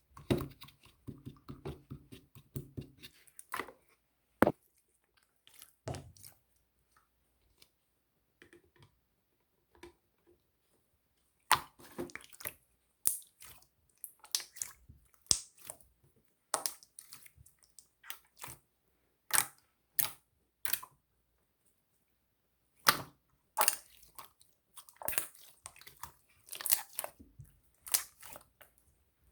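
Glittery slime being handled: irregular sharp clicks and pops in clusters, with quiet gaps between.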